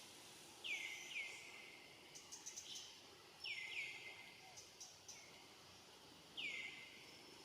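A bird calling in short chirps that fall quickly in pitch, mostly in pairs, five in all. A few quick faint clicks come between them, over a quiet outdoor background.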